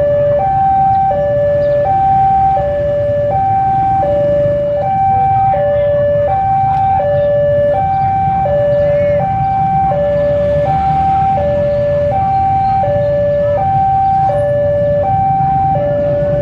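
Railway level-crossing warning alarm sounding a steady electronic two-tone, alternating high and low about every three-quarters of a second, signalling that a train is approaching. A low rumble runs underneath.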